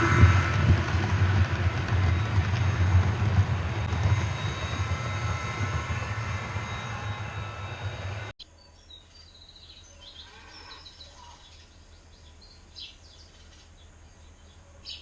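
Train sound effect of a loco-hauled train passing through the station without stopping: a heavy rumble that fades slowly, then cuts off abruptly about eight seconds in. Quieter background with birds chirping follows.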